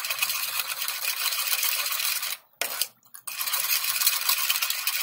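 Spoon stirring quickly in a drinking glass, clinking and scraping against the glass as sugar, vinegar and pineapple juice are mixed. The stirring stops briefly about halfway through, then goes on.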